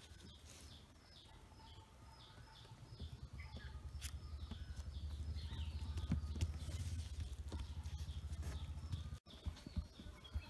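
A small bird calling in a quick series of short, falling chirps, over a low rumble that swells in the middle and cuts off abruptly near the end.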